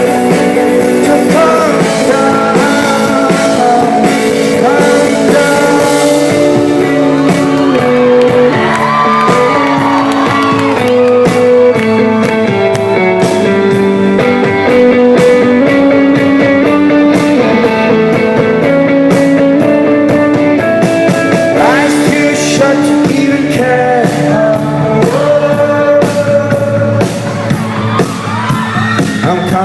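Rock band playing live: a sung lead vocal over guitars and a steady beat, loud and continuous.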